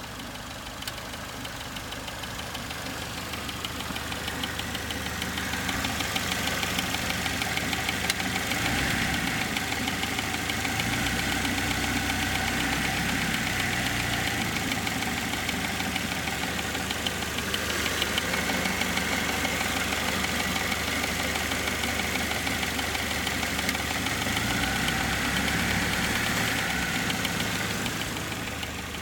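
Saturn SL2's 1.9-litre DOHC four-cylinder engine idling with a rapid, steady ticking that runs along with the engine speed; the owner doesn't know its cause.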